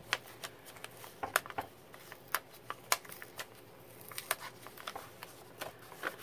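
Kraft paper bag crinkling and crackling in the hands as its sealed flap is peeled open, in irregular sharp crackles.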